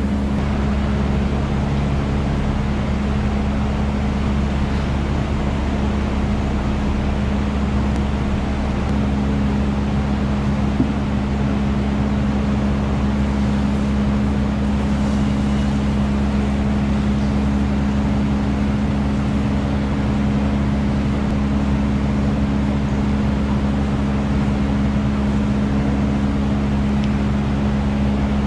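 A machine running with a steady low hum, several low tones held unchanged, with no rise or fall.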